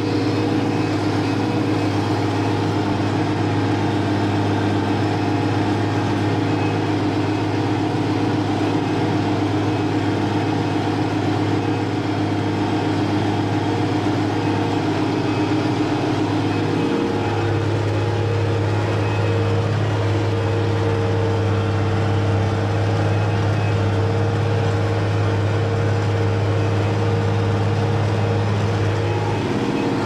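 Zetor tractor's diesel engine running steadily while driving, heard from inside the cab. Its note changes about 17 seconds in and changes back just before the end.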